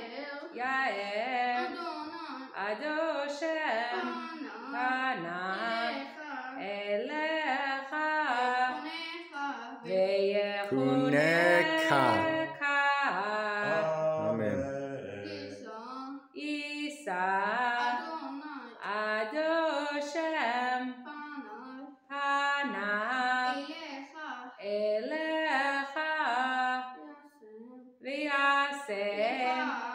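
A boy with an unbroken voice chanting Hebrew prayers aloud in a sung recitative, phrase after phrase with short pauses for breath.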